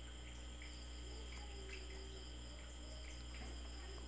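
Faint room tone: a steady low electrical hum with thin, steady high-pitched tones above it and a few soft clicks.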